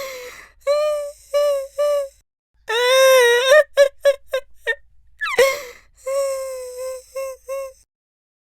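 A man crying theatrically: long, high-pitched wailing cries broken by quick short sobs, with one cry sliding down in pitch about five seconds in.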